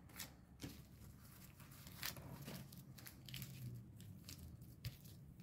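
Faint, scattered rustling and a few light clicks of hands handling a clear plastic file sleeve and plastic clay wrapping.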